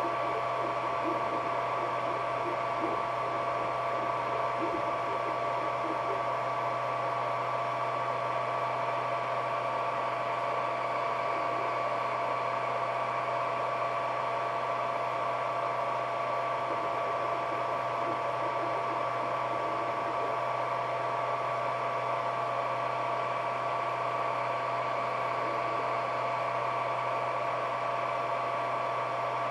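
Ender 3D printer running during a print: a steady hum with a constant high whine.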